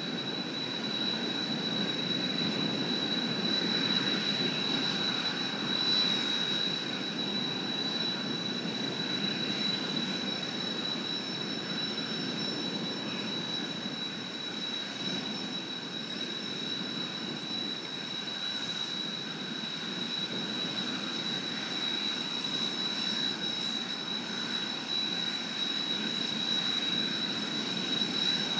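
Jet noise from Blue Impulse Kawasaki T-4 twin-turbofan trainers overhead, a steady distant rumble that swells and fades a little, with a thin high steady whine over it.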